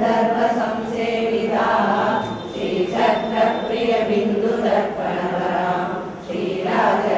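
A group of women chanting devotional hymns together in unison, in a steady run of phrases with short breaks between them.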